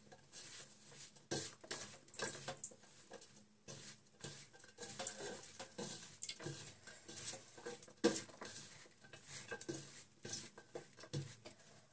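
A hand mixing chopped potatoes and onions with spices in a large stainless-steel bowl: irregular rustling and scraping, with frequent small knocks against the steel.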